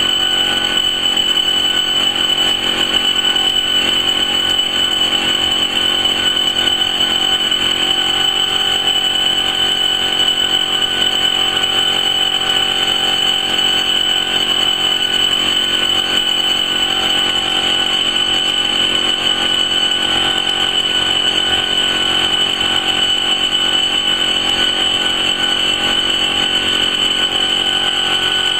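Auto-feed laser fabric-cutting machine running while it cuts, a steady mechanical hum with a constant high whine.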